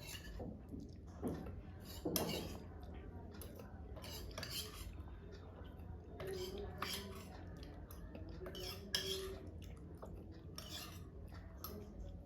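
Spoon and cutlery clinking and scraping against a plate during eating: a run of short irregular clinks, the loudest about two seconds in.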